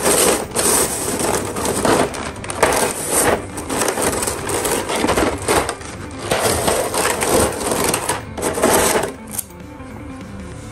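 Rustling and clattering of plastic packaging and model-kit parts being handled and unpacked, in repeated bursts that stop about a second before the end, over background music.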